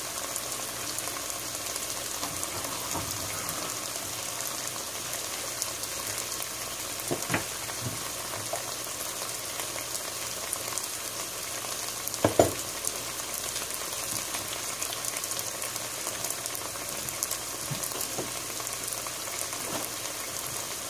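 Onions, bell peppers and tomatoes frying in oil in a pot, a steady sizzle with fine crackles. Two brief louder knocks come about 7 and 12 seconds in.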